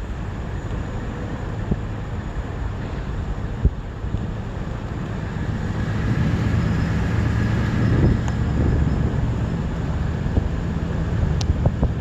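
Low rumble of a motor engine running, getting louder about halfway through, with wind noise on the microphone.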